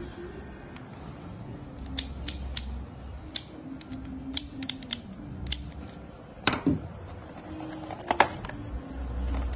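Scattered sharp clicks and taps of plastic being handled: a cordless hair clipper and the plastic guard combs in its box tray, about a dozen in all, with one louder knock a little past the middle. The clipper is not running.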